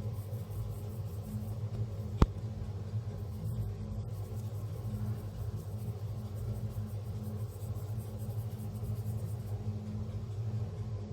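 Steady low hum, with one sharp click about two seconds in.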